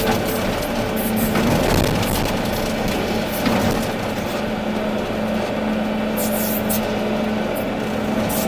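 Volvo EC380D excavator's diesel engine running steadily at working revs, a constant drone, with a few short knocks from the machine working.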